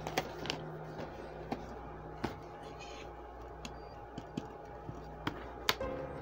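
Plastic DVD cases handled by hand: scattered clicks and taps as a case is opened, the disc shown and the case shut, with a sharper click near the end, over a faint steady hum.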